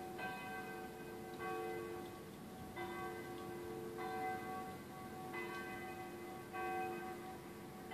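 Church bells ringing: two bells of different pitch struck in alternation, about one strike every 1.3 seconds, each note ringing on into the next.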